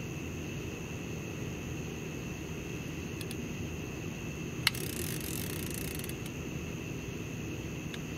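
A fishing reel: a sharp click, then about a second and a half of rapid ratcheting clicks as the reel's clicker or drag runs. A steady low rumble sits underneath.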